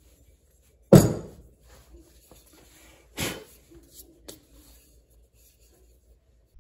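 A loose steel hatchet head set down on a mat-covered workbench, one sharp knock about a second in. A lighter knock follows a couple of seconds later, then two small clicks as tools are handled on the bench.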